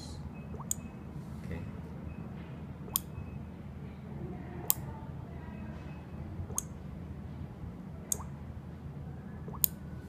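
Relays on a four-channel wireless relay board clicking as channels are switched from a phone app: six sharp single clicks, spaced about one and a half to two seconds apart, over a low steady hum.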